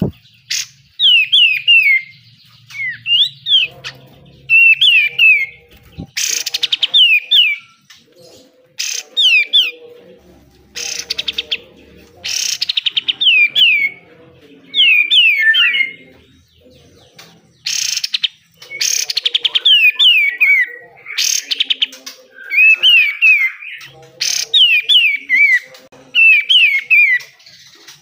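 Kapas tembak (cungkok) songbird singing in repeated short phrases of falling whistled notes. The phrases are broken every few seconds by loud, harsh, rapid rasping bursts, the 'besetan' strokes that keepers prize in this bird.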